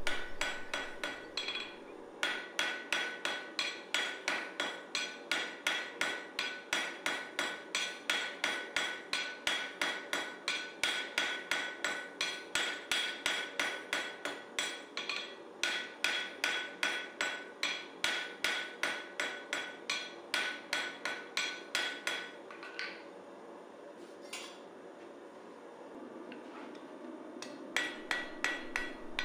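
Hand hammer striking hot steel on an anvil in a steady rhythm of about two to three blows a second, each blow ringing. The blows stop about 22 seconds in and resume shortly before the end.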